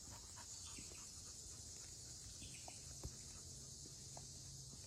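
Faint steady high-pitched chorus of crickets or other insects, with a few small ticks and one sharper click about three seconds in.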